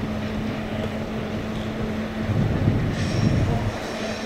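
Train on the track: a steady low hum, with a louder rumble of wheels from about two seconds in and a thin high squeal starting about three seconds in.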